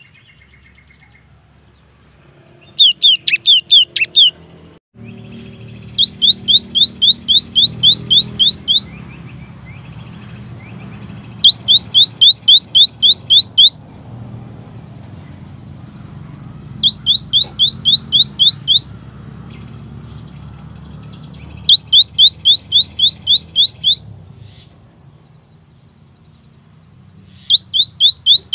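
Cinereous tit (gelatik batu) singing: fast runs of rising whistled notes, about five a second, in bursts of two to three seconds, repeated six times with short pauses between.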